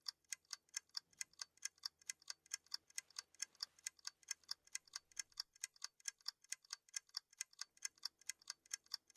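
Clock ticking, quick and even at roughly four to five ticks a second, a ticking sound effect.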